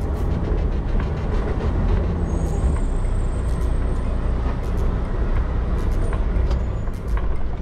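Semi truck's diesel engine running steadily at low speed, heard from inside the cab as a deep rumble.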